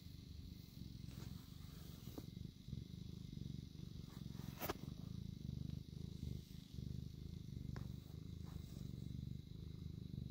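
Domestic cat purring steadily close to the microphone, a low even rumble, with a few light clicks, the sharpest about halfway through.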